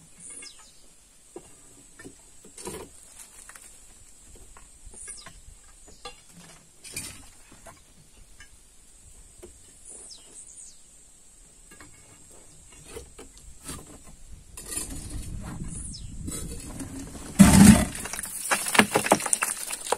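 Quarry stone work: scattered sharp clinks and knocks on rock every couple of seconds. Over the last few seconds it turns to a louder rattle of loose stone, with one heavy thump a couple of seconds before the end.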